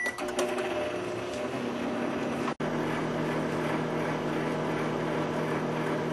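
Microwave oven running after its keypad beep: a steady electrical hum with fan noise. The sound drops out for an instant about two and a half seconds in.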